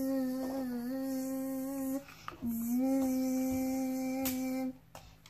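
A child humming two long, steady buzzing notes, each about two seconds, with a short break between them, imitating the whir of a dental tool held to a doll's mouth.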